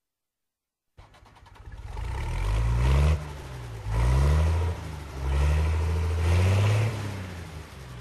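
An engine starting about a second in and revving up and falling back about four times, its pitch climbing with each rev, then settling lower.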